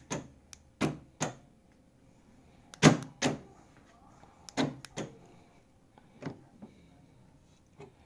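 Aftermarket electric door lock actuator in a C3 Corvette door clacking as it is cycled by remote and drives the lock linkage rod. Sharp clicks come in pairs about half a second apart, repeating about every two seconds.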